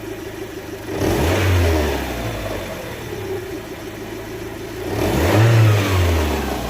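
A 2005 Land Rover Freelander's 1.8 petrol four-cylinder engine idling, with its throttle snapped open twice, about a second in and again near five seconds; each time it revs up briefly and drops back to idle. The engine has a misfire, which the mechanic suspects needs new spark plugs.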